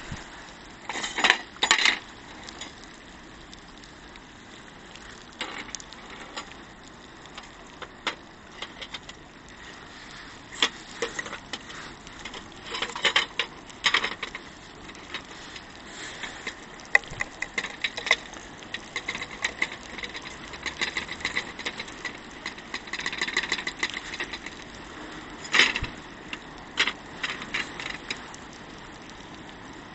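Wood fire crackling with sharp, irregular pops, over a steady hiss of rain.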